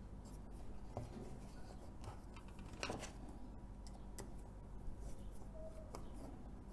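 Faint handling noise: a handful of light, scattered clicks and rubs as a plastic ball-jointed flexible tripod leg and a metal alligator clip are worked onto a wooden base.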